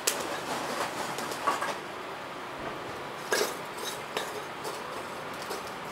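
Lumps of burning charcoal clinking and knocking against one another and the stove as a hand shifts them in a charcoal pot stove. The clinks come irregularly over a low steady hiss.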